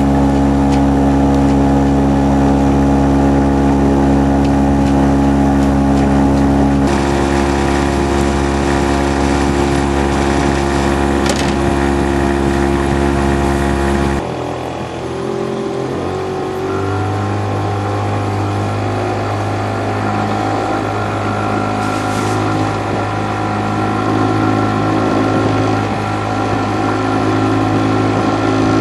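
A boat's engine running steadily at constant speed with a low, even hum. About halfway through it shifts to a different steady pitch.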